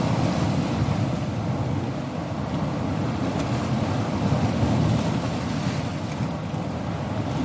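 Sea waves on a coast: a steady, low rumbling rush of surf between breakers, without the bright hiss of a wave breaking.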